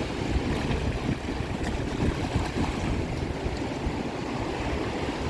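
Lake Michigan surf in big waves, washing and rushing up the shore, with wind buffeting the microphone in a low, fluctuating rumble.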